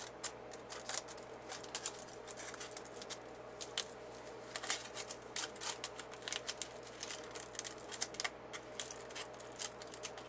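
Tiny scissors snipping and trimming thin aluminum foil: many quick, irregular snips.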